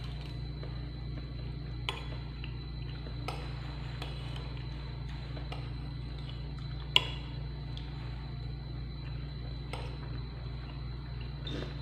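Metal spoon clinking and scraping against a ceramic bowl while scooping up leftover rice: a handful of scattered clinks, the sharpest about seven seconds in, over a steady low hum.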